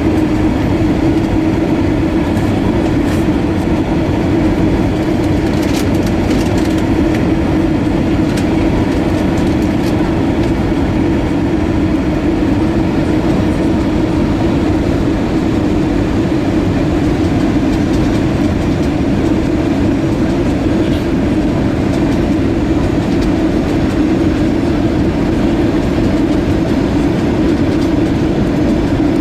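Steady, loud cabin noise inside an Airbus A320-232: the rumble of its IAE V2500 engines and airframe, with a few faint clicks.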